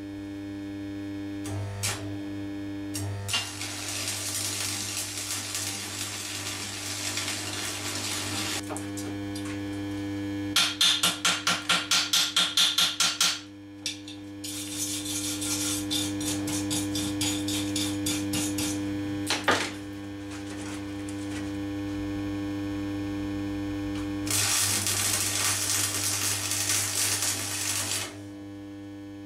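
Small 13-amp stick welder burning 2 mm rods: stretches of crackling, hissing arc over a steady electrical hum. About a third of the way through comes a run of rapid, sharp pops, roughly three or four a second and louder than the rest.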